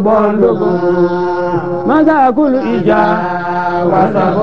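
A voice chanting in Islamic religious recitation, holding long steady notes with a quick melodic turn about two seconds in.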